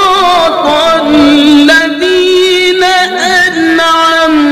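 Male Qur'an reciter chanting in the melodic tilawah style. One unbroken voice holds long ornamented notes and slides between pitches several times without pausing for breath.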